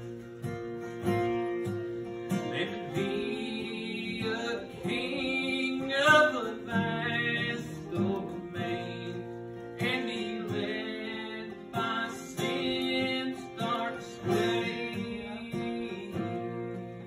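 A man sings a hymn to his own strummed acoustic guitar, heard through a microphone in a wood-panelled chapel.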